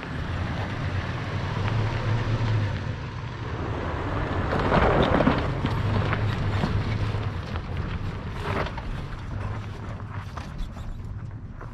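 An off-road 4x4's engine running low and steady at crawling speed, with wind buffeting the microphone, strongest about five seconds in. Scattered clicks and knocks come through in the last few seconds.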